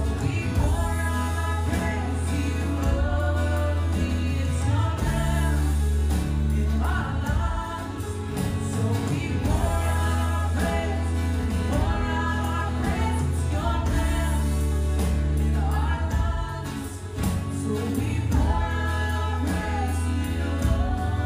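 Christian worship song: a group of voices singing together over instrumental backing with a strong, steady bass.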